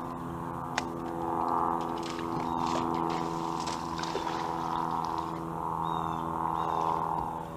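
Electric bow-mounted trolling motor running with a steady hum that swells and eases every couple of seconds. Light clicks are scattered over it.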